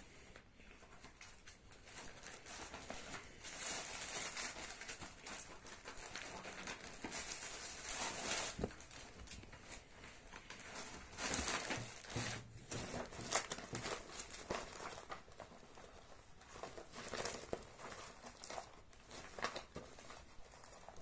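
Rustling and scattered small knocks of a person moving about and handling things close to the microphone, in uneven swells.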